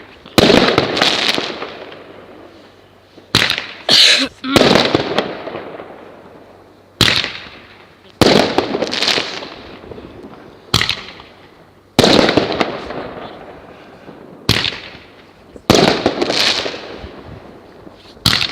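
Fireworks bursting one after another: about ten sharp bangs a second or two apart, each trailing off in a crackling, echoing rumble.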